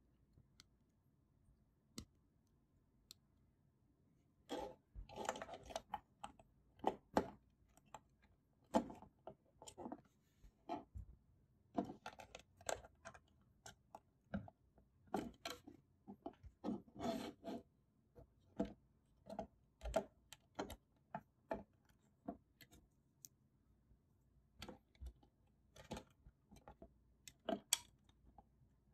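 Plastic Lego bricks clicking and rattling as they are handled and pressed together, in irregular clusters of sharp clicks. Only a couple of faint ticks in the first few seconds, then frequent clicking.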